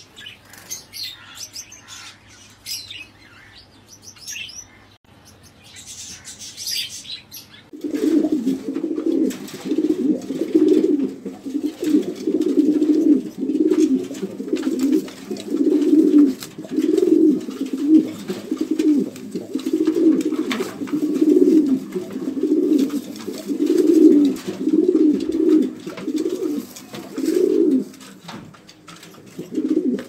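Small birds chirping for the first several seconds, then pigeons cooing in a steady run of low, repeated coos, about one a second.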